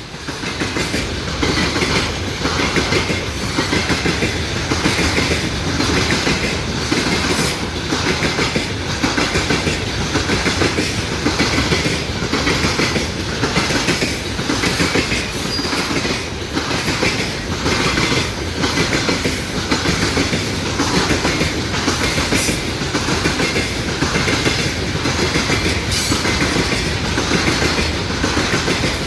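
A train's wagons rolling past at speed, their wheels clicking over the rail joints in a steady, even clatter.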